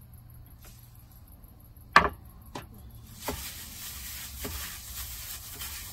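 Food-prep handling at a small kitchen counter: a few sharp knocks and clicks of dishes and utensils being handled, the loudest about two seconds in, over a steady low hum, with a faint hiss coming in about three seconds in.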